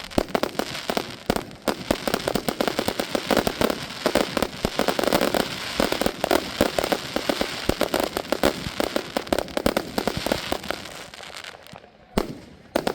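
Fireworks display: a dense, rapid run of bangs and crackling shells going off close together, thinning out near the end with one last bang.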